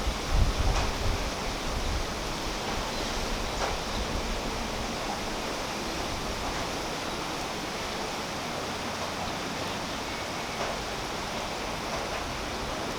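Steady rain falling on a tree's leaves: a dense, even hiss with a few faint, sharper drop ticks. A low rumble swells in the first second or two, like wind buffeting the microphone.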